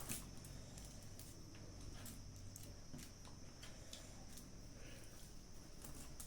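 Close-up eating sounds: soft chewing with scattered small wet mouth clicks and smacks, over a faint steady high-pitched hiss.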